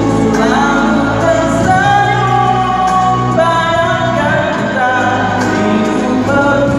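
Live singing into a hand microphone over backing music, amplified through PA speakers, with several long held notes.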